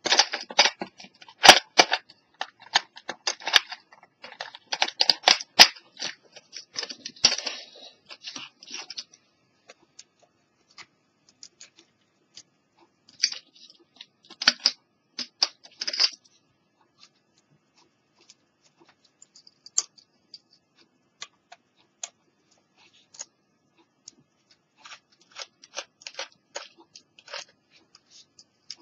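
Handling noise from a small plastic portable cassette player and tools on a wooden table: a dense run of clicks, taps and plastic rattles at first, then scattered single clicks with two short clusters.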